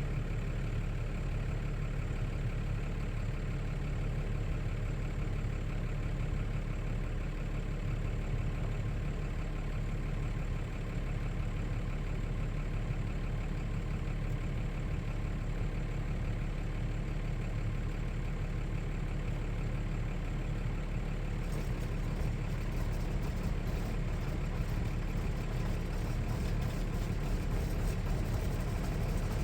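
Diesel engine idling steadily while warming up on a below-freezing morning.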